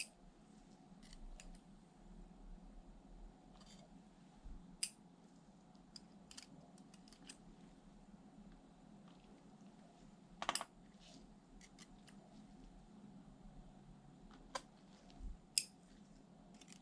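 Scattered small clicks and taps of tools and parts being handled while working on a laptop, with a sharp double click about ten and a half seconds in and a few more near the end, over a faint steady hum.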